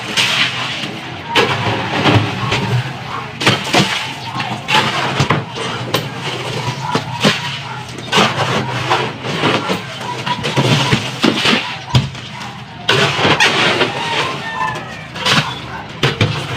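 Crushed ice crunching and scraping as it is pushed and tamped down with a long pole in a foam ice box. It comes as a string of irregular knocks and grinding scrapes.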